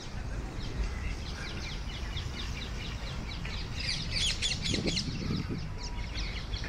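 Birds chirping and calling in quick short notes, with a dense burst of chirps about four seconds in, over a steady low rumble.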